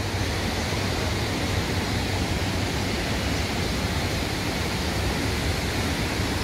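Water running down the water slides and splashing into the run-out pool: a steady, even rush.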